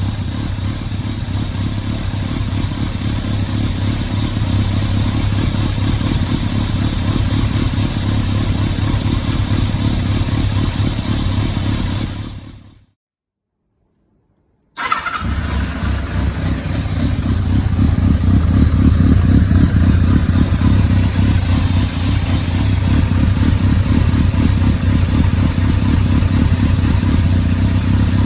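Kawasaki ZRX1200S inline-four engine running steadily through its replacement silencer, a deep exhaust note with rapid firing pulses. About twelve seconds in the sound fades out to two seconds of dead silence, then the engine comes back abruptly and runs on steadily.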